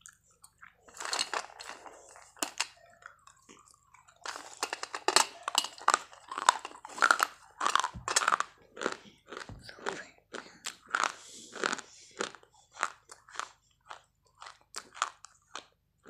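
Crisp crunching and chewing of hard white chalk-like sticks, bite after bite. It starts about a second in, comes thick and fast through the middle, and thins to slower, separate crunches near the end.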